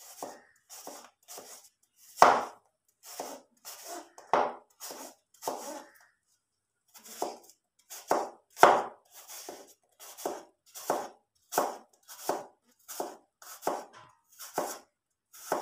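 Chef's knife chopping an unpeeled apple into chunks on a plastic cutting board: a steady run of short knocks, about one every half second or so, with a brief pause about six seconds in.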